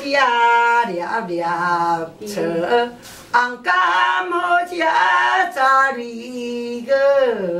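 An elderly woman singing a Taiwanese Hokkien siong-po-kua (antiphonal folk song) unaccompanied. She sings in phrases of long held, wavering notes, and near the end a phrase slides downward.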